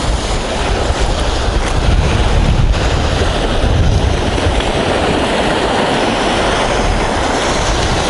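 Small waves of the calm Sea of Azov breaking and washing up a sandy shell beach, a steady wash of surf, with wind rumbling on the microphone.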